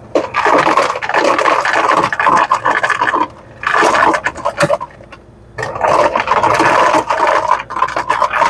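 Ice cubes rattling out of a Lancer FS-30 soda fountain's ice chute in three dispenses: a run of about three seconds, a short one, then a longer one near the end, each stopping cleanly. The chute shuts off as it should, with the repaired control board no longer holding the ice door open.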